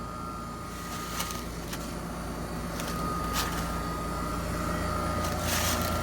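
Trane XR15 heat pump outdoor unit running in heat mode: a steady hum from its Climatuff reciprocating compressor and condenser fan, growing slightly louder toward the end.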